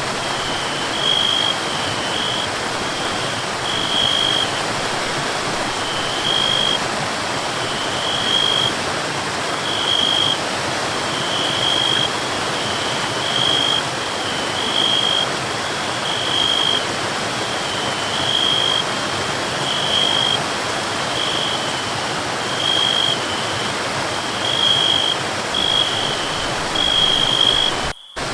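Forest waterfall rushing steadily, with a short high chirp repeating about every second and a half above the water. The sound drops out for a moment just before the end.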